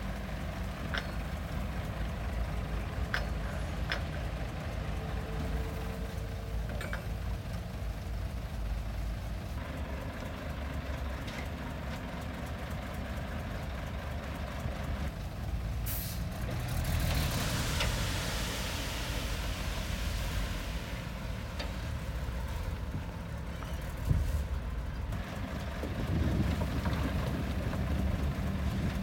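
Heavy diesel earthmoving machinery running steadily, with occasional short clanks. Just past halfway a truck's air brakes let out a loud hiss of air that lasts about four seconds.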